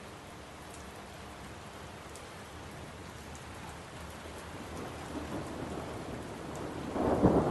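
Thunderstorm: steady rain falling, with a rumble of thunder swelling up near the end.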